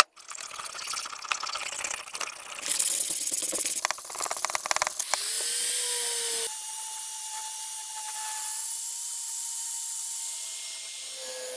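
Scraping and rasping strokes of metal on the steel hatchet head. About five seconds in, an angle grinder fitted with a sanding disc spins up with a rising whine and then runs with a steady whine as it sands the head.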